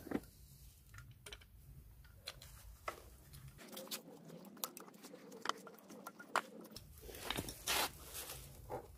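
Scattered light clicks and taps of a valve spring compressor being fitted and wound down on a small pit bike's cylinder head, steel tool against the alloy head and valve spring.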